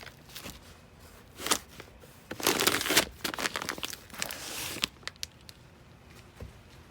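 Crinkling and rustling of something being handled, in bursts: a short one about a second and a half in, then two longer ones through the middle, with a few sharp clicks.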